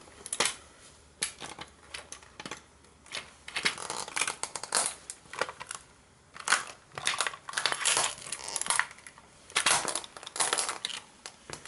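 A model toy car cracking and crunching under sneaker soles as it is stomped on and crushed. The sound comes in irregular bursts of crackling and snapping, separated by short pauses.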